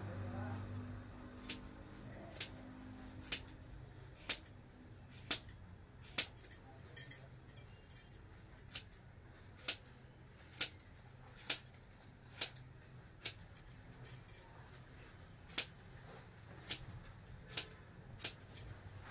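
Hairdressing scissors snipping through the ends of long hair, one sharp snip about every second, with a brief pause a little past the middle and a few quicker snips near the end. A faint steady low hum runs underneath.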